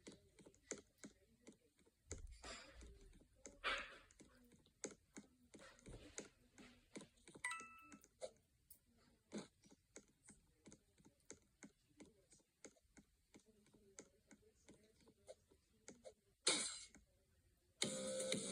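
Faint, irregular light clicks and taps, a few a second, with a brief electronic chirp about halfway through and a short rush of noise near the end. Music starts just before the end.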